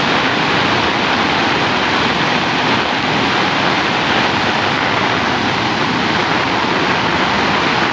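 Floodwater rushing over a submerged concrete weir: a loud, steady rush of churning water.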